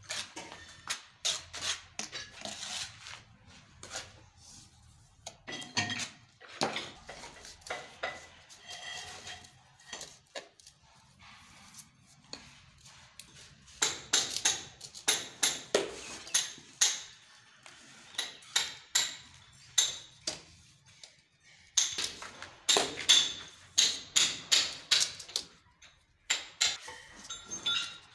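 Irregular runs of sharp taps and clinks, several a second, from tiling work: hard glazed tiles and tools knocking and scraping as tiles are fitted onto a pillar. The densest runs come about halfway through and again near the end.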